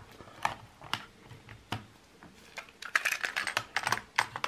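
Scattered plastic clicks and rattles as a Toshiba KT-4549 Walkman is handled and a cassette is fitted to it, with a quick run of clicks about three seconds in.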